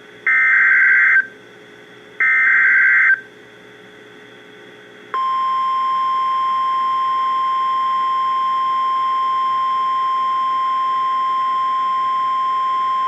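NOAA Weather Radio Emergency Alert System tones: two digital SAME header data bursts, each about a second long and about a second apart. About five seconds in, the steady single-pitch 1050 Hz warning alarm tone starts and holds. Together they signal the start of a severe thunderstorm warning broadcast.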